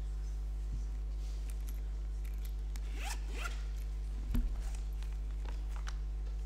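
Steady low electrical hum from the microphone and sound system, with faint rustles and light clicks of handling at the lectern microphones and one soft thump a little over four seconds in.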